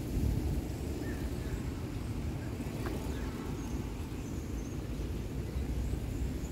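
Outdoor street ambience: a steady low rumble with a few faint, brief bird chirps.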